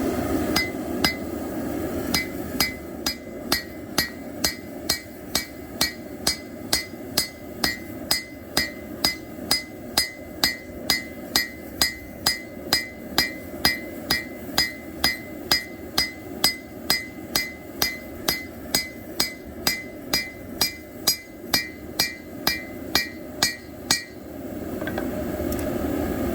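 Hand hammer striking hot plow-disc steel on an anvil while forging a knife blade: steady, even blows about twice a second, each with a short metallic ring. The hammering stops about 24 seconds in, when the steel has cooled too far to work.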